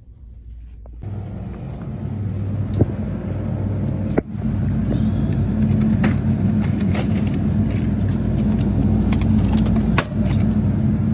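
A steady, loud low mechanical hum starts abruptly about a second in. Several sharp clicks and knocks sound over it, one strong knock about four seconds in and another near the end.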